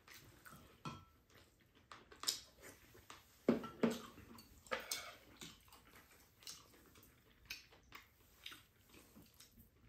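Eating at a table: spoons and chopsticks clicking against ceramic bowls and a frying pan, with chewing, as scattered short clicks and knocks.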